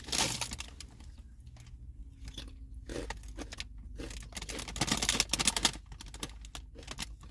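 Barbecue potato chips crunching as they are bitten and chewed, in irregular crackly bursts.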